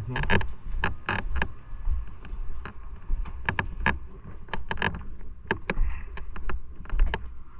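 Footsteps walking out through a doorway and down wooden stairs: an irregular run of sharp knocks and clicks, a few a second, over a low rumble.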